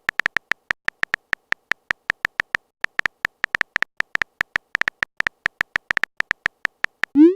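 Rapid, uneven run of short electronic beeps, a typing sound effect of a message being keyed in, about seven a second. Near the end comes a short rising pop, like a message being sent.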